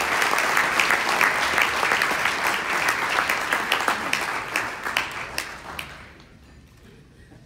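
Audience applauding with many hands clapping, thinning out and dying away about six seconds in.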